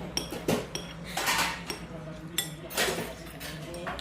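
Cutlery clinking and scraping against dishes during a meal, in a string of irregular sharp clinks, some with a brief ring.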